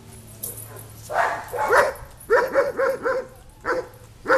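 Cockapoo barking in a rapid series of sharp barks after a quiet first second, in clusters of two to four, the last cluster the loudest. The trainer reads this barking as fear-based aggression, a display threat meant to scare people away.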